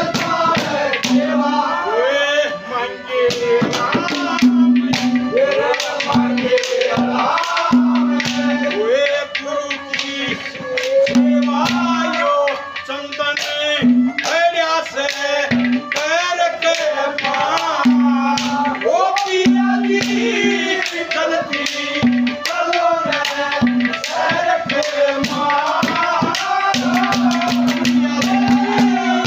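Haryanvi ragni: a man singing over harmonium and drum accompaniment, with a steady, busy percussion beat and held harmonium notes that come and go.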